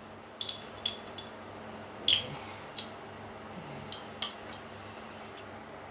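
Steel spoon clinking and tapping against a steel cup as oil is scooped out and poured into a kadai: about ten light, irregularly spaced clinks, the loudest about two seconds in.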